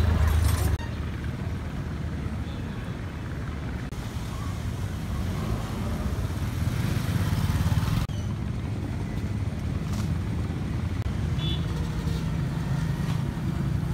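Steady low engine rumble of street traffic, motorbikes among it. The sound changes abruptly about a second in and again about eight seconds in.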